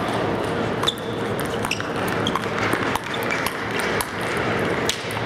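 A series of about five sharp, short metallic pings and clicks, roughly one a second, some with a brief high ring, over steady background noise.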